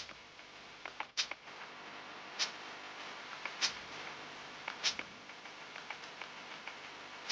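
Sharp mechanical clicks repeating evenly about every 1.2 seconds, with fainter ticks between them.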